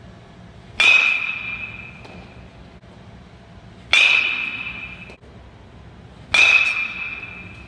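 A bat hitting a ball three times, each hit a sharp crack with a ringing ping that fades over about a second.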